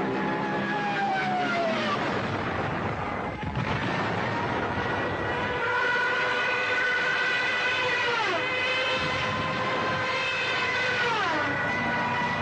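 War sound effects: a multi-toned whine over a noisy rumble that drops sharply in pitch three times, about a second in, about eight seconds in and near the end.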